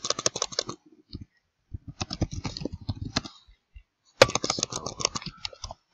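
Typing on a computer keyboard: quick runs of key clicks in three spells, with short pauses between them.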